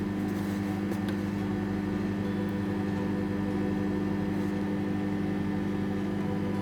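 Microwave oven running, a steady low hum while it heats a cup of tea.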